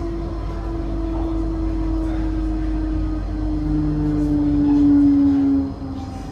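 Electric train moving along the platform, its motors whining in steady tones that fall slowly in pitch over a low rumble as it slows. The whine grows louder and then drops away suddenly near the end.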